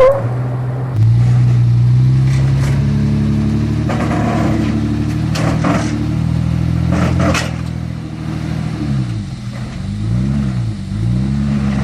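Nissan Patrol's TB48 4.8-litre straight-six petrol engine working under load on a rock climb. The revs jump about a second in and hold, with a few short clunks along the way. Near the end the revs rise and fall about three times as the throttle is worked.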